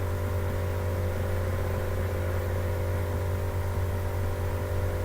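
A steady, unchanging machine hum with a low drone and a few faint steady tones above it.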